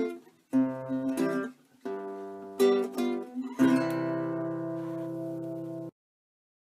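Acoustic guitar intro tune: a few strummed chords with short pauses between them, the last one left ringing for about two seconds before it cuts off suddenly near the end.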